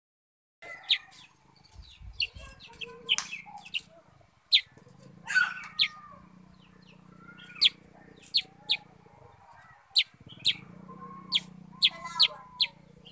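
Black-headed bulbul (kutilang sutra) calling from a cage: a rapid, irregular string of short, sharp, high chips, some loud, starting about half a second in.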